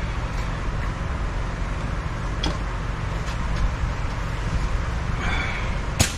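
Steady low rumble of workshop background noise. Near the end a short hiss is followed by a single sharp metallic click as an air impact wrench is picked up and handled.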